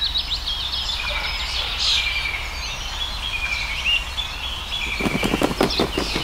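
Small birds chirping and twittering in quick short calls, with a fast run of clicks about five seconds in.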